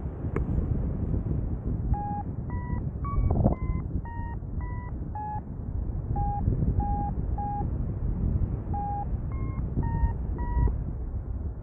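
Paraglider's variometer beeping in short tones, about two a second, over a steady rush of wind on the microphone. The pitch of the beeps steps up and down, the vario signalling that the glider is climbing in lift.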